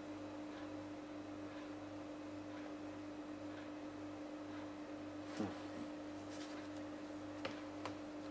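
Steady low electrical hum, with a few faint small clicks after about five seconds.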